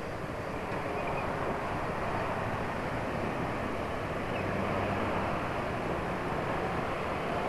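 Steady road noise from riding a scooter in dense motorcycle traffic: engines, tyres on a wet road and wind on the microphone blending into one rush. It grows a little louder about a second in as the traffic moves off.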